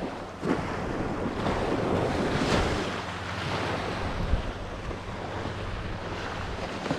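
Surf washing onto a sandy beach, with wind buffeting the microphone; the wash swells to its loudest a little after two seconds in, then eases.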